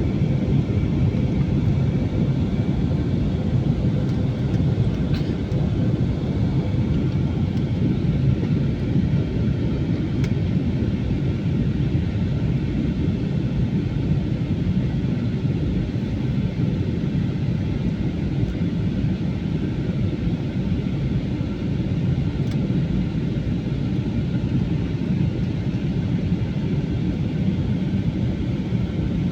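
Airplane engine noise: a steady low rumble with a faint hum above it, holding an even level.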